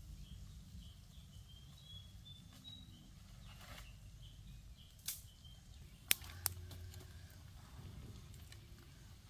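Quiet forest ambience: a low steady rumble, a bird chirping faintly in short notes early on, and three sharp clicks about two-thirds of the way in, the middle one the loudest.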